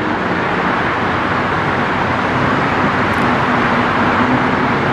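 Steady wash of city traffic noise, with a faint low hum running under it.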